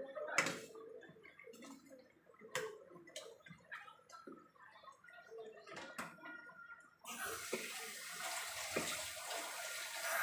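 Light clinks and taps of kitchen utensils, then a kitchen tap turned on about seven seconds in, with water running steadily for about three seconds.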